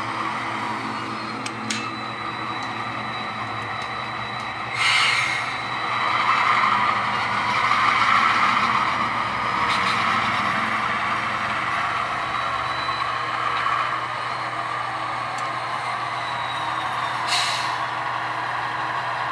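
Diesel sounds from the sound decoders of a consist of three HO scale GP40-2 model locomotives: the engines run steadily and swell louder for several seconds as the lashed-up units start moving. Two short air-brake hisses come about five seconds in and again near the end.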